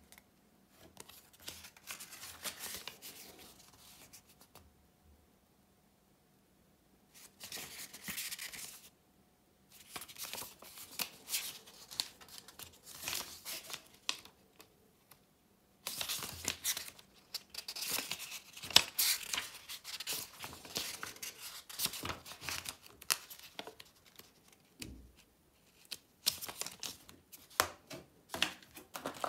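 Paper rustling and crinkling as packaging inserts and a small instruction booklet are handled and leafed through, in irregular bursts with a few short silent gaps.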